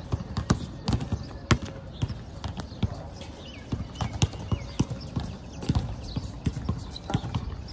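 Irregular thuds of a basketball bouncing and players' feet hitting an outdoor hard court during a game, one knock after another with no steady rhythm.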